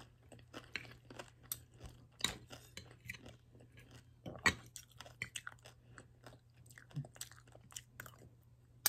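Close-up chewing of rice and vegetables, with a spoon and fork clicking and scraping against the dish; a few sharper clinks stand out about two and four and a half seconds in.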